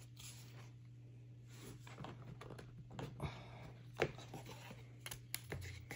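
Thick game cardboard pieces scraping and rustling as they are handled and slotted together, with a sharp click about four seconds in and a few lighter clicks near the end.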